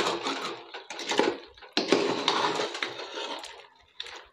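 Metal spoon stirring thick chicken gravy in a metal pot, scraping and clinking irregularly against the pot's sides and bottom.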